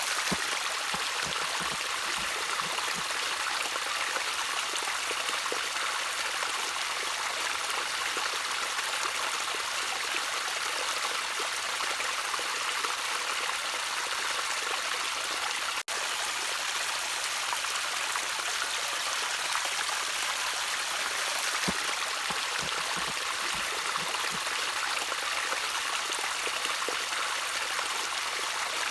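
Gently trickling stream water, a steady even splashing with no change in flow, broken by a momentary dropout about halfway through.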